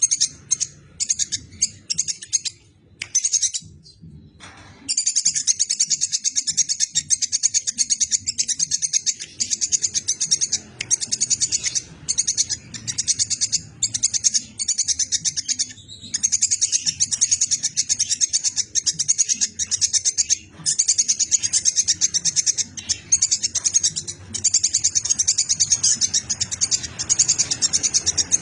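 Squirrel (tupai) chattering: long runs of rapid, high-pitched chips with short breaks, played as a masteran recording for training songbirds to copy.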